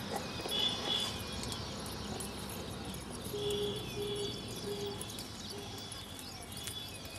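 Open-field ambience with birds calling in short repeated notes over a steady background of insects chirping.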